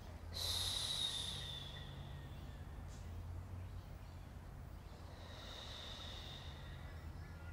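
A woman's long, hissing breaths, twice: a louder one about half a second in lasting nearly two seconds, and a fainter one about five seconds in.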